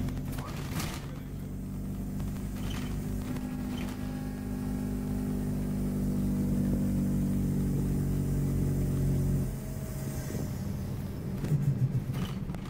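Scania OmniCity N230UD double-decker bus's diesel engine and drivetrain running under way, heard from the upper deck as a steady hum. The hum drops in level and changes pitch about nine and a half seconds in, and a few sharp rattles come near the end.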